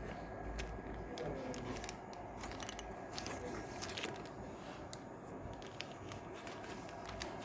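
Faint handling noise: scattered small clicks and light knocks as computer parts and cables are handled, with a cluster of clicks about three to four seconds in.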